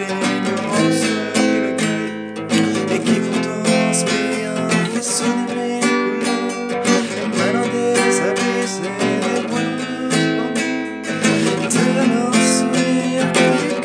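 Acoustic guitar being strummed steadily, playing a song's chord accompaniment.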